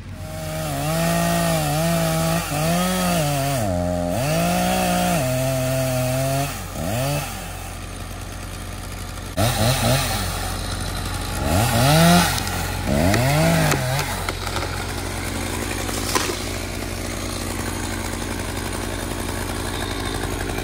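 Gas chainsaw making a felling cut at the base of a tree, its engine pitch repeatedly dropping as the chain bogs down in the wood and climbing again, in two spells of cutting. Under it a compact tractor's diesel engine runs steadily as its loader pushes the trunk; after about 14 seconds the cutting stops and the engines keep running steadily.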